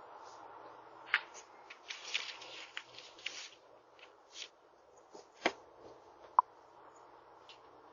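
Faint rustling and scattered clicks and taps over the steady hiss of a doorbell camera's microphone, with a sharper knock about five and a half seconds in and a brief sharp pip, the loudest sound, about six seconds in.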